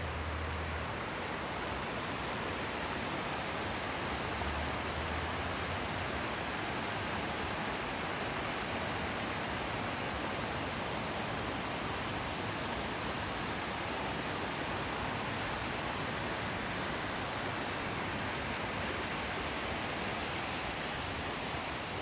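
Steady rush of fast-flowing creek water running over rapids. A brief low rumble comes right at the start and another about four seconds in.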